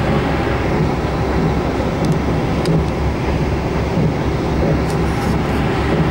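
Steady rumble and rush of a moving passenger train heard from inside the carriage, with a few faint, short ticks.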